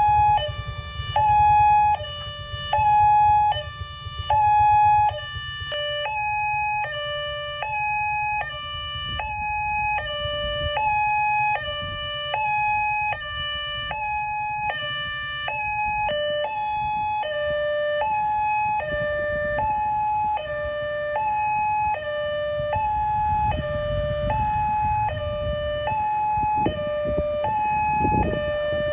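Railway level-crossing warning siren sounding a two-tone hi-lo wail, switching between a higher and a lower tone about once a second, which signals that the crossing is closing for an oncoming train. Under it a low rumble grows stronger near the end.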